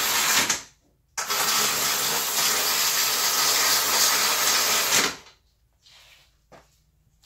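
A handheld power tool running steadily in two bursts. The first stops about half a second in; the second starts just after a second and runs until about five seconds in. It is driving fasteners as the downpipe is bolted back up under the car. Faint light clinks follow.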